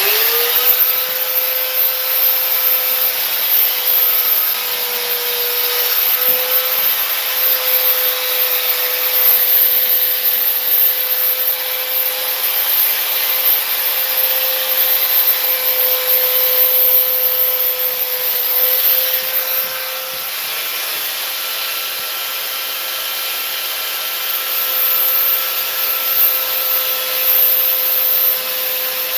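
Electric belt sander spinning up and then sanding fiberglass: a steady motor whine over a rough grinding hiss, a little quieter for the last third.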